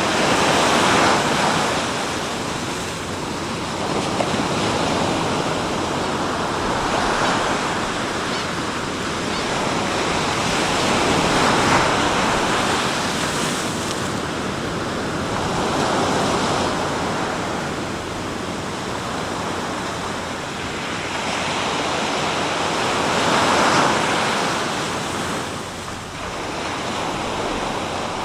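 Sea surf: waves breaking and washing on the shore in a continuous rush that swells and eases every few seconds.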